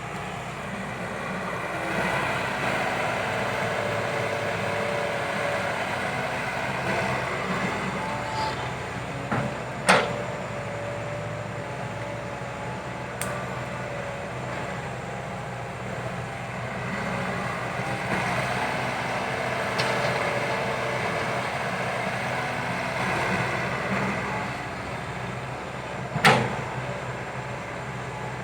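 Kobelco SK120 Mark III excavator's diesel engine running steadily as it digs, swelling louder now and then under load. Two sharp bangs stand out, one about ten seconds in and one near the end.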